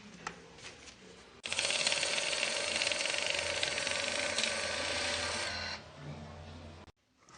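Handheld portable banknote counter running, its small motor flicking rapidly through a stack of notes. It starts sharply about a second and a half in, runs steadily for about four seconds, then stops; light handling clicks come before it.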